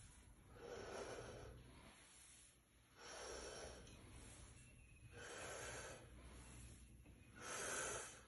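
A man breathing hard through weighted squat repetitions: four forceful exhalations about two seconds apart, the last the loudest.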